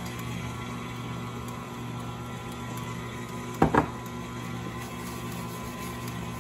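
KitchenAid Classic Plus stand mixer running steadily, its wire whisk beating a creamy cheesecake batter in the steel bowl, a steady motor hum. A little past halfway there is a brief double knock.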